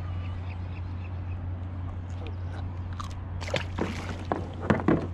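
Handling noises at the side of a kayak: a quick run of clicks and knocks with a short hissing burst, starting about three seconds in and loudest near the end, over a steady low hum.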